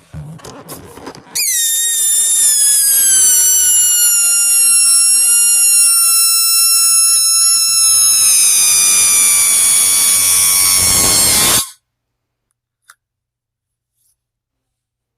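Air squealing out of a balloon's stretched neck: one long, loud, shrill squeal, its pitch sliding slowly down, which lasts about ten seconds and cuts off suddenly.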